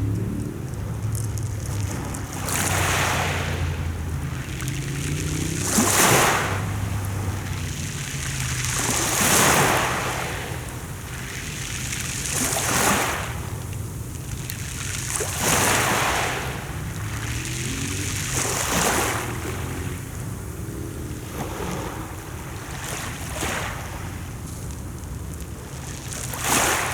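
Mediterranean Sea waves washing onto the shore, each surge swelling and falling back about every three seconds, over a low steady hum.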